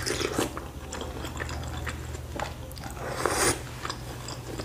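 Close-up eating sounds of a person taking in and chewing a mouthful of chicken noodles with chili sauce: a slurp of noodles, then wet chewing with small smacking clicks, and a louder, longer mouth noise a little after three seconds in.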